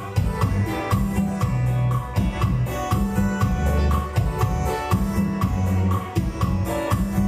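Instrumental music with a steady drum beat, bass and guitar, as in a karaoke backing track.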